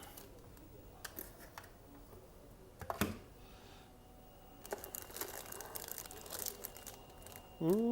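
Plastic packaging crinkling and rustling as wrapped parts are handled and unwrapped, with a few light clicks and one sharper tap about three seconds in; the crinkling gets busier in the second half.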